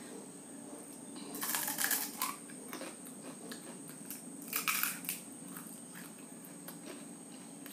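A crisp, dry panipuri shell (puri) crunching as it is eaten, in two short bursts about one and a half and four and a half seconds in. A steady low hum runs underneath.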